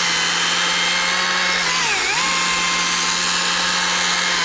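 Stihl MSA 190 T battery top-handle chainsaw running at full speed through a seasoned stump, a steady electric whine with a brief dip in pitch about halfway as the chain takes the load, then recovering.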